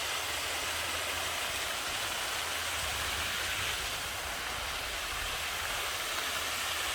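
Waterfall rushing steadily: a continuous hiss of falling water.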